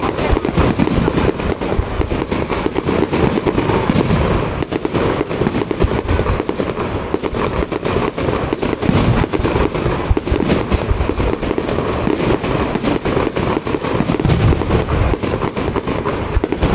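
Aerial fireworks shells bursting in rapid, continuous succession, with many sharp bangs and crackles overlapping throughout and no pause between them.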